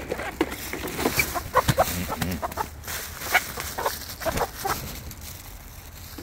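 A flock of young barred hens clucking in many short calls, thinning out in the last second or so.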